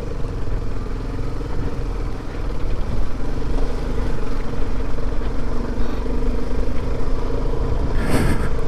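Motorcycle engine running steadily under way, with low wind rumble on the microphone and a brief rush of noise near the end.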